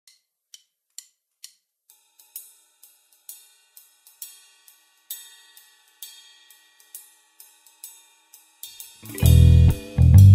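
Song intro: a hi-hat ticks about twice a second, and from about two seconds in a clean electric guitar picks single notes over it. About nine seconds in, bass and drums come in loud with the full band.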